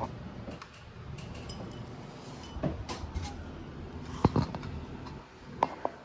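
Handling noise: a few scattered light knocks and clicks, the strongest about four seconds in, over a low steady hum.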